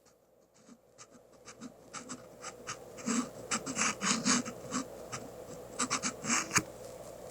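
Irregular short metal-on-metal scraping strokes, a few a second and louder after the first couple of seconds, from hand work on a freshly cut small thread on the lathe. A faint steady hum runs underneath.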